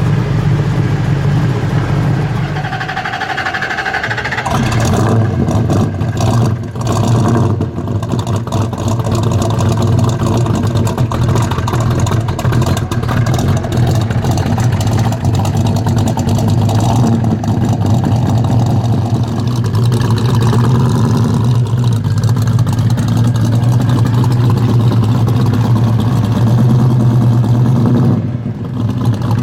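Muscle car V8 engine running loud and deep, rising and falling in revs, with a short drop in sound near the end.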